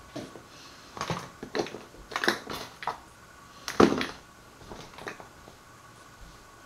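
Bottles and containers being picked up and set down on a table: a series of irregular knocks and clicks, the loudest about four seconds in.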